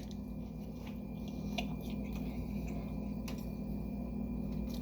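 Faint sounds of someone eating, a few soft clicks and ticks, over a steady low hum.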